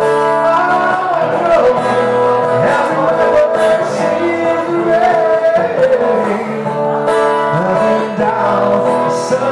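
Acoustic guitar played live with a man singing over it.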